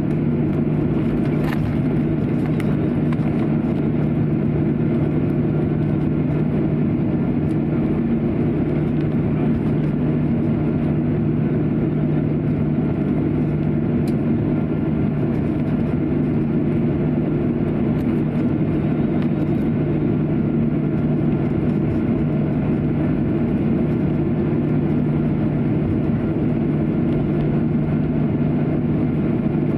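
Cabin noise of a Boeing 737-800 taxiing, heard from a window seat over the wing: the CFM56 jet engines running at low taxi power make a steady low drone with a few even tones in it. A few faint ticks sit on top.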